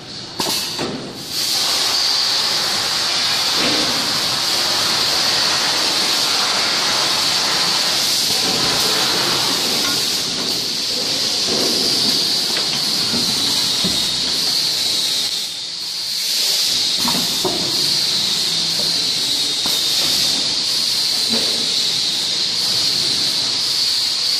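Full-automatic shrink-wrapping machine running, with a loud steady hiss. The hiss comes up about a second in and dips briefly about two-thirds of the way through.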